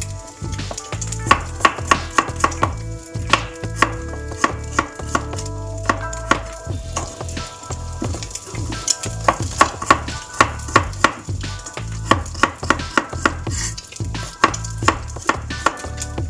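Cleaver chopping carrots on a wooden cutting board: repeated sharp knocks of the blade hitting the board, a few a second with short pauses.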